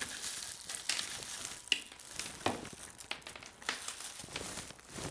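Plastic candy wrappers crinkling and rustling as hands rummage through a bowl of wrapped candies, in irregular crackles with a few sharper clicks.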